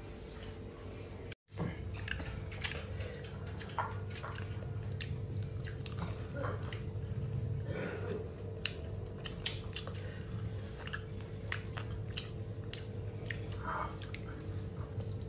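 People chewing and eating: irregular wet mouth clicks and smacks over a steady low hum.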